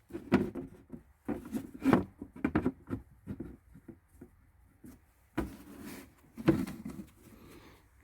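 Bamboo perch stick rubbing and creaking against the wooden nest box as it is worked into a small hole, in a series of short scrapes with one sharp knock about five seconds in.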